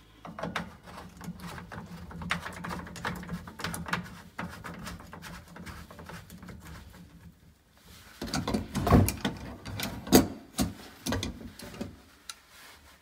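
Plastic cleanout cap being screwed back onto a kitchen sink P-trap by hand: rapid clicking and scraping as it is threaded on, then several louder knocks about eight to eleven seconds in.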